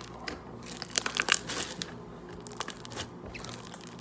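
Slime being squeezed and worked by hand, making irregular sticky pops and clicks, thickest and loudest about a second in.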